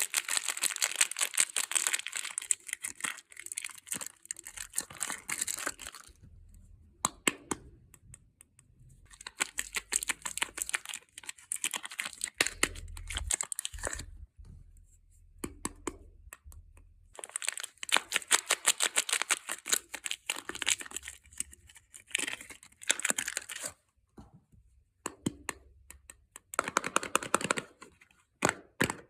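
Soap packaging being torn open and crinkled by hand, in several spells of dense crackling a few seconds long with short pauses between.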